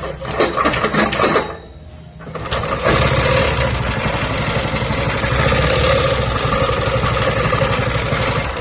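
TVS Jupiter 125 scooter's engine and CVT making a loud mechanical rattle: uneven clattering at first, then from about three seconds in a steady running rattle. The mechanic traces the noise, which is there on self-start and while running, to the aluminium clutch fan on the crankshaft, whose splines are worn out.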